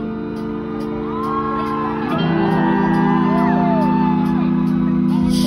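Live rock band music heard from among a concert crowd: held keyboard chords that change once about two seconds in, with fans shouting and whooping over them. Loud drums come in at the very end.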